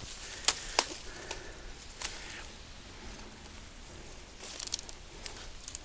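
Footsteps pushing through dense reeds and brush: scattered crackling and snapping of stalks and leaves, with a few sharper clicks about half a second in and a cluster near the end.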